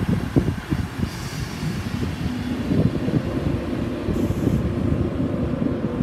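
Class 158 diesel multiple unit running past at close range: a heavy low rumble with thumps in the first second, then a steady engine hum from about two seconds in.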